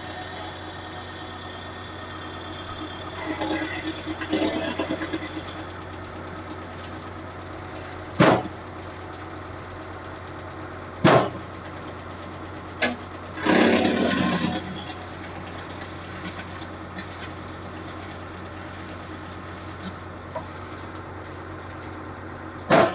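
Hydraulic wood chipper's engine running at a steady idle, with four sharp knocks spread through it and a rough, noisy burst lasting about a second just after the middle.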